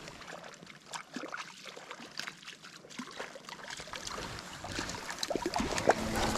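Small mountain stream running, with irregular light splashes and clicks as a freshly hooked trout is handled at the water's edge, busier near the end.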